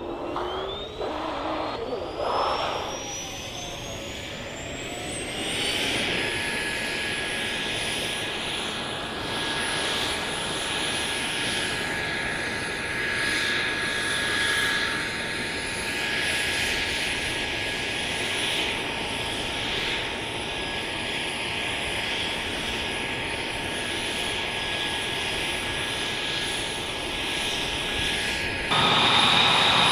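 F-22 Raptor's Pratt & Whitney F119 turbofan starting: a whine rises steeply over the first six seconds as the engine spools up, then holds as a steady high whine over a rush of air. Near the end the sound turns suddenly louder, with a new, lower whine.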